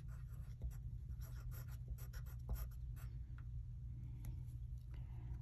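Yellow wooden pencil writing on a paper workbook page: a quick run of short scratching strokes that thins out after about three seconds.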